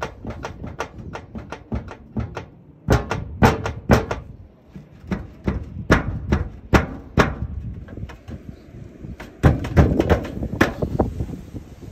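Tile-profile steel roofing sheets clattering and knocking as they are pressed and flexed by hand. The knocks come fast and irregular, with the loudest runs about three seconds in, near the middle and near the end. The sheets rattle because they are only loosely held in place.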